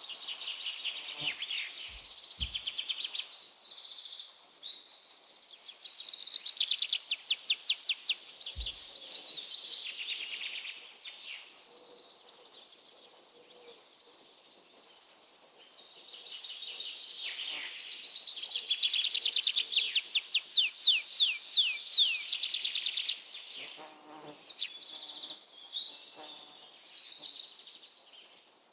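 Birds chirping and singing, with two loud runs of quick repeated notes, one about six seconds in and another near twenty seconds, over a steady high hiss that cuts off suddenly after about twenty-two seconds.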